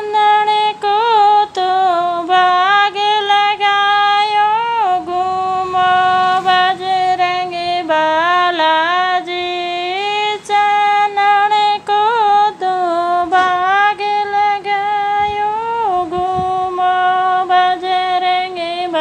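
A woman singing a Marwari devotional song to Balaji, holding long notes with wavering turns and pitch bends, with almost no accompaniment to be heard.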